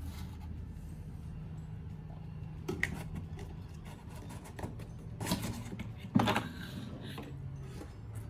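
A few short knocks and rustles, as of air fryer oven parts and packaging being handled; the loudest comes about six seconds in. A steady low hum runs underneath.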